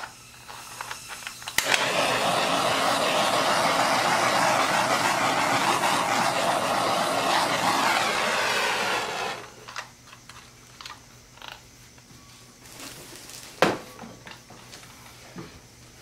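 A handheld torch starts with a click and its flame hisses steadily for about seven and a half seconds as it is played over wet acrylic pour paint, then stops. A single sharp click follows a few seconds later.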